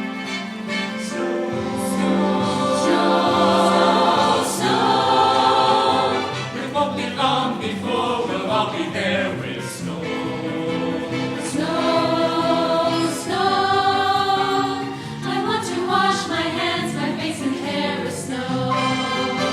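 High school choir singing together in several parts, with a low accompanying part coming in about a second and a half in.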